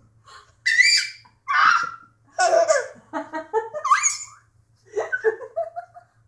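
Six-month-old baby laughing in a string of short bursts of giggles, some of them very high-pitched.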